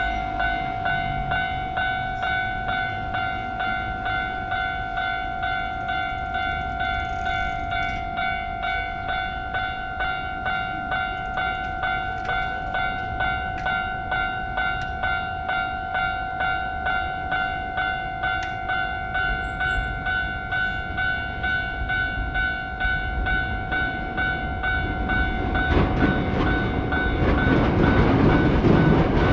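Japanese level crossing's electronic warning bell ringing in a steady, rapid repeated ding. Near the end a train's rolling noise rises and grows louder over the bell as the train reaches the crossing.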